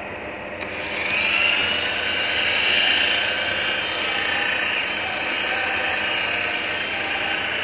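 Handheld electric rotary polisher switched on with a click about half a second in, its motor spinning up into a steady high whine as the pad works over a car's bodywork.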